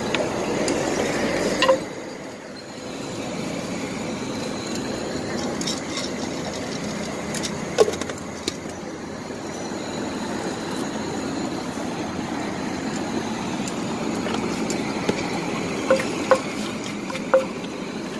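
Wooden pestle and spoon knocking against a clay mortar as green papaya salad is pounded and mixed: a handful of sharp, spaced-out knocks over steady background noise.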